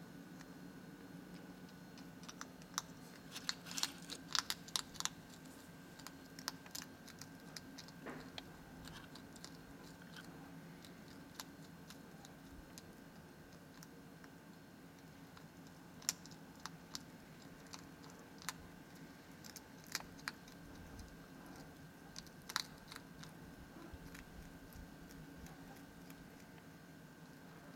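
Hedgehog crunching dry cat kibble: crisp, irregular clicks and crunches, thickest a few seconds in and again in short clusters later on, over a faint steady hum.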